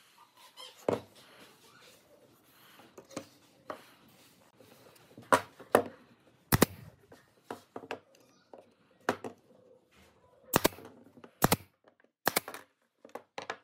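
Pneumatic brad nailer firing a string of sharp shots, roughly one every second or so in the second half, driving brads to join two wood strips into an L-shaped angle. Before that, quiet handling of the wood pieces and glue bottle on the bench.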